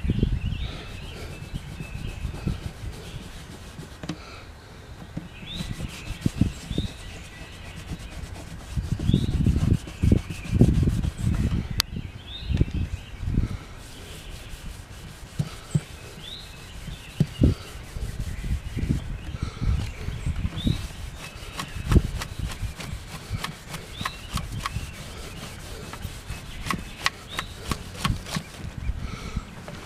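Cloth rag rubbing and buffing over the solid spruce top of a Martin acoustic guitar, working in polishing compound: an irregular scuffing and rubbing with uneven soft low thumps and small clicks.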